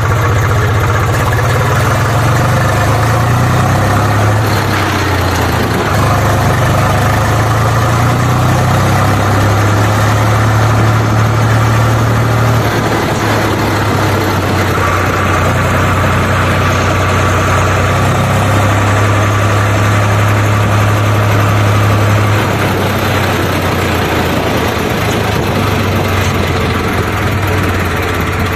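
Tractor engine sound effect running steadily, a loud low drone that steps up and down in pitch every few seconds.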